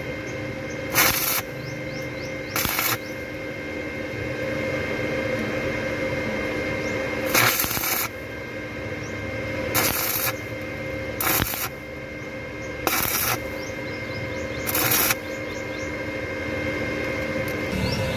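Short bursts of harsh shop-tool noise, each under about half a second and one of about half a second, repeated irregularly every one to three seconds over a steady hum.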